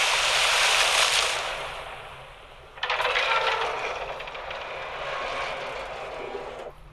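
Animated-film sound effects of an aircraft crashing into the sea: a big water splash that fades away, then about three seconds in a second burst of rushing, bubbling water with fine rattling clicks that slowly dies down.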